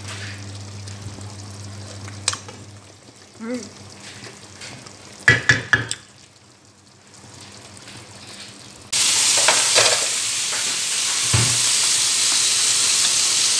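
Wooden spoon stirring chicken gizzards, liver, carrots and potatoes in a frying pan, with a cluster of knocks against the pan a little after five seconds in. About nine seconds in, a sudden loud, steady sizzle sets in as liquid goes into the hot pan.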